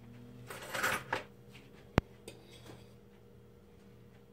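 Quiet kitchen handling noise while eggs are cracked into a plastic mixing bowl: a brief rustle about a second in, then one sharp tap about two seconds in.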